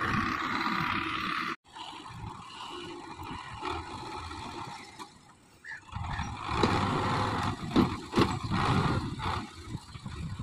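Belarus 510 tractor's diesel engine running. The sound cuts off abruptly about one and a half seconds in, comes back quieter, and grows louder again with uneven surges from about six seconds in.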